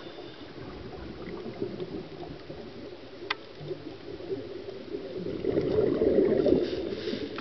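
Underwater recording of bubbling and gurgling, typical of a scuba diver's exhaled bubbles: quieter at first, swelling in the last couple of seconds. A single short click comes about a third of the way in.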